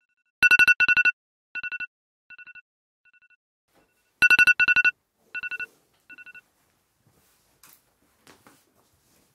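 Mobile phone alarm beeping. Clusters of quick electronic beeps on a steady two-note tone come twice, about four seconds apart, each followed by fainter repeats that die away. The beeping stops about six seconds in, and a few faint rustles follow.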